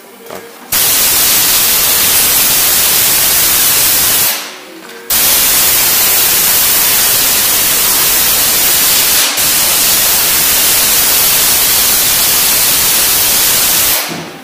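Compressed air hissing from a blow gun in two long blasts, the first about three and a half seconds, then after a short pause about nine seconds. It is blowing spilled petrol off an outboard motor's carburettor to dry it, after the float needle stuck and the carburettor overflowed.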